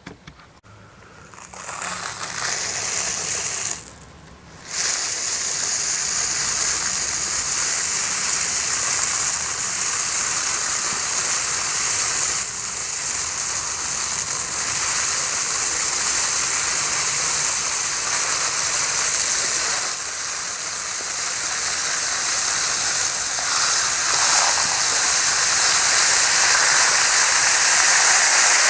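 Tiny aquarium substrate pebbles being poured in a steady stream, making a continuous, hissing rush like running water. The stream breaks off briefly about four seconds in, then runs on and grows a little louder near the end.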